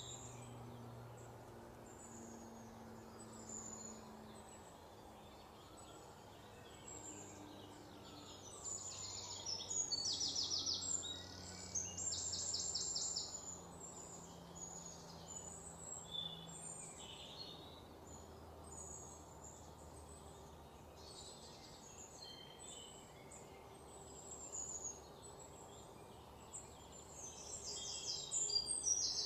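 Birds calling and singing, with bursts of fast, high trills about ten seconds in and again near the end, over a faint low hum.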